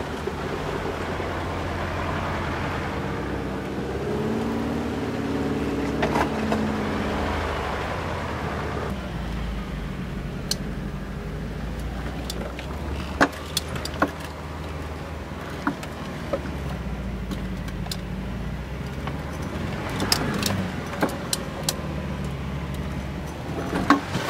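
VW T3 Syncro van's engine running while it drives off-road, its pitch rising and falling with the throttle in the first few seconds. In the second half sharp clicks and knocks sound over the steady engine.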